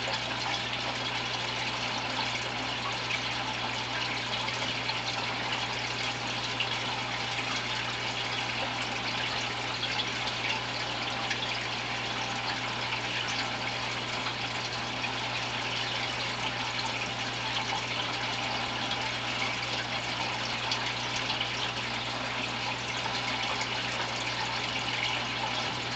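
Aquarium filter running, its water splashing and trickling steadily into the tank, over a steady low hum.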